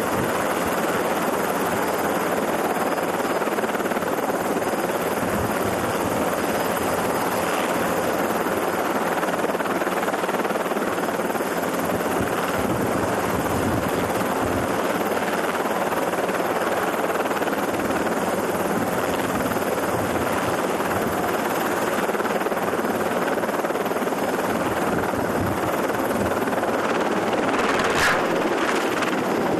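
Small helicopter running on a ship's helideck: a steady, dense drone of engine and rotor noise. A single sharp crack stands out near the end.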